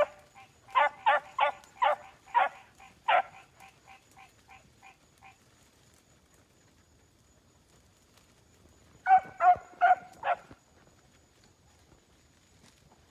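Four-month-old puppies barking in short, high-pitched barks: a quick run of barks that trails off fainter, a pause of a few seconds, then another burst of four or five barks near the end.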